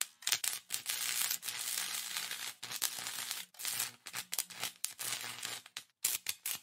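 Sizzling, crackling electric-arc welding spark sound effect with a faint low hum beneath it. It cuts out in short sharp gaps several times and stutters rapidly near the end.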